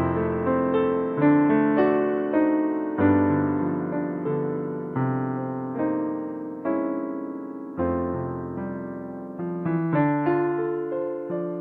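Solo digital piano playing a slow waltz. Chords and melody notes are struck about once a second and left ringing as they fade, with deep bass notes at the start and again about two-thirds of the way through.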